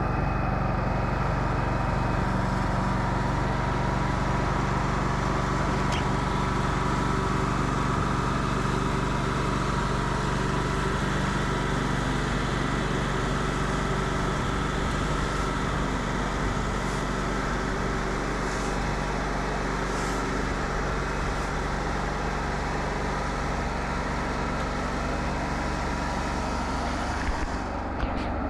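Wood-Mizer LT40 Wide bandsaw mill running steadily, sawing a pecan log.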